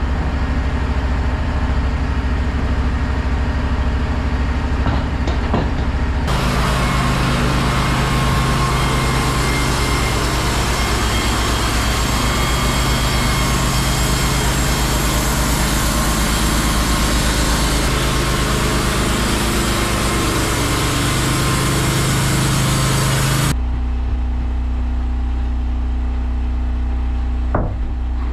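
Wood-Mizer LT15 Wide portable band sawmill, its engine running steadily. About six seconds in, the band blade bites into the log and a loud even hiss of cutting joins the engine. The hiss stops suddenly near the end as the cut finishes, and the engine runs on.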